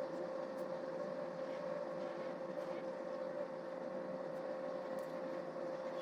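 Steady mechanical hum with one constant mid-pitched tone, unchanging throughout.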